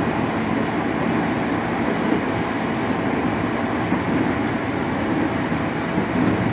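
Interior running noise of a former JR Nambu Line 205-series electric multiple unit motor car travelling at speed: a steady, even noise of wheels on rail and the traction motors under the floor.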